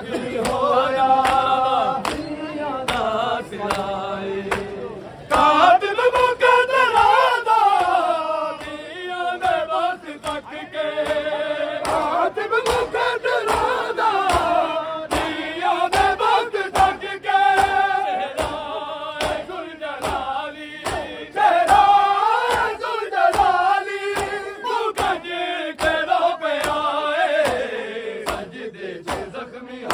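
Male mourners chanting a Saraiki nauha in unison. Sharp rhythmic strikes of matam, about two a second, keep time under the voices.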